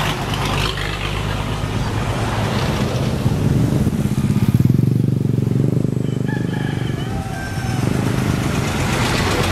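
Motor vehicles passing on a road: a truck's engine running steadily, then a motorcycle engine passing close, loudest about four to five seconds in.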